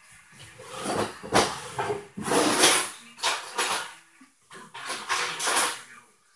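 A kitchen utensil scraping out a container, in several irregular noisy bursts with a few light knocks.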